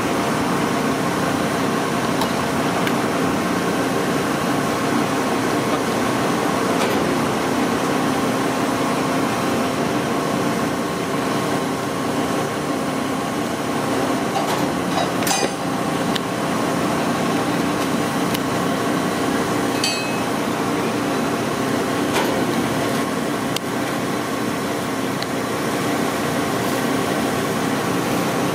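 Steady mechanical drone of running machinery, even and unbroken, with a few short clicks about halfway through.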